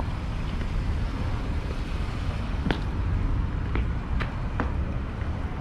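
Car running, a steady low rumble, with a few short light clicks in the second half.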